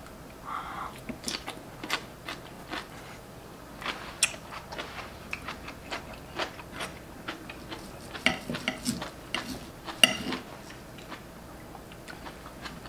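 Close-up chewing and mouth sounds of people eating, with knives and forks clicking and scraping on plates as a thick steak is cut. A sharper clink stands out about ten seconds in.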